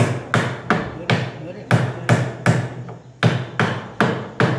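Hammer blows on the wooden lid of a ballot box, about three a second, with a brief gap about three seconds in.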